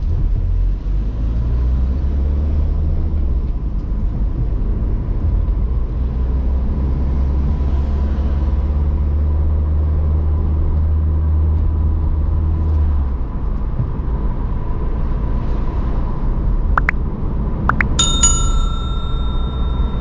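Car interior driving noise: a steady low engine and road rumble that eases off about two-thirds of the way through. Near the end come two clicks and then a bright bell ding that rings out for about two seconds, the sound effect of a subscribe-button animation.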